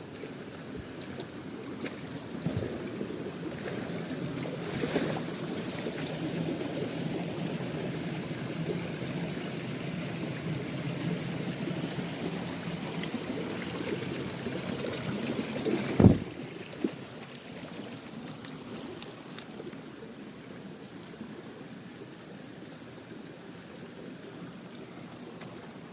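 Waterfall water flowing and trickling in a steady rush, fuller for the first two-thirds and then settling back. About two-thirds of the way through there is a single sharp knock.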